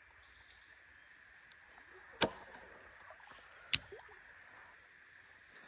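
Two sharp clicks about a second and a half apart over a faint steady hiss.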